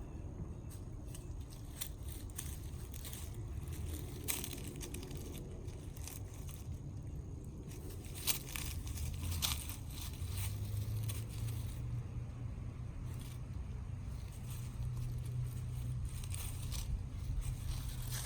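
A puppy gnawing at and pushing around a small gourd: scattered crunches, scrapes and clicks, more of them in the second half, over a steady low rumble.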